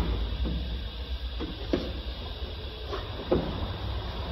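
A few short knocks and clicks from the window glass and frame of a car's stripped rear door being handled, the clearest about three seconds in, over a steady low hum.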